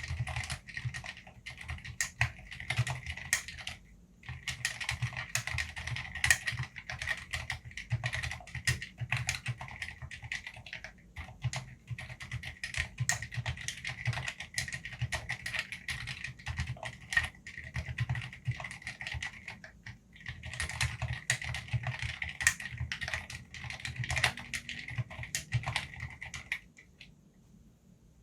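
Fast, continuous typing on a COX Black Pearl CNC mechanical keyboard with lubed Cherry MX Silent Red switches and PBT keycaps. The keystrokes are short and rapid, with brief pauses about four and twenty seconds in, and the typing stops near the end.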